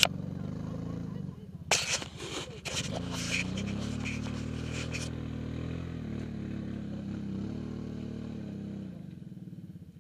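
ATV engine revving under load as the quad struggles to climb out of deep mud where it is stuck, holding high revs for several seconds before fading away about a second before the end. A few sharp knocks and spatters come about two seconds in.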